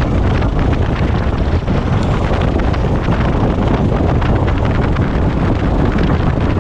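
Light propeller airplane's engine and propeller running steadily, heard close up from outside the aircraft, with wind buffeting the microphone.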